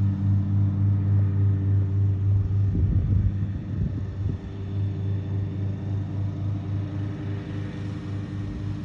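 Mowing tractor's engine running with a steady, evenly pulsing hum; about three seconds in it wavers briefly and then runs a little quieter.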